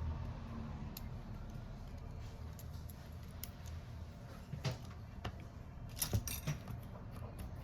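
Light metallic clinks and taps of small tools and parts being handled on a phone repair bench, scattered, with a cluster of several quick clicks about two-thirds of the way through.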